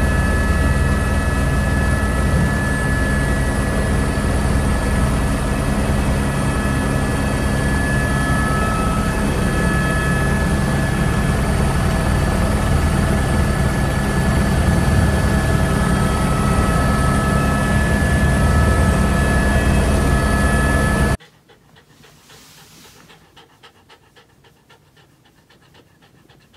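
Helicopter heard from inside the cockpit in flight: a steady low rotor beat with a steady high whine over it. It cuts off suddenly about 21 seconds in, and a corgi is heard panting faintly.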